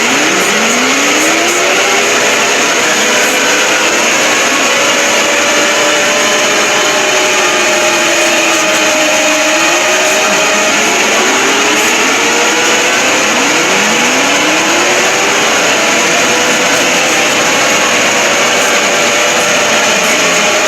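Mock emergency-alert alarm, heavily distorted and very loud: several siren tones sweep up in pitch and sag back, overlapping one another under a dense, steady wall of harsh noise.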